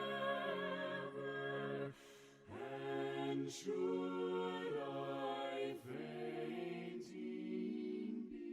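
A cappella voices singing a slow hymn in harmony, holding chords with short breaks between phrases.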